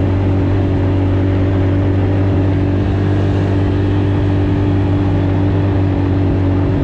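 A small off-road vehicle's engine running at a steady speed, its hum holding one pitch, under a constant rushing noise.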